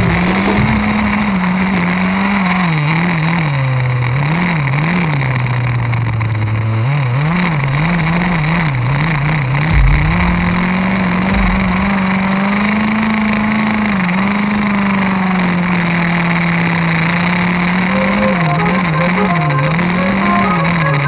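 HPI Baja 5B SS radio-controlled buggy's two-stroke gasoline engine running hard, its pitch rising and falling over and over as the throttle is worked, with a low thump about halfway through.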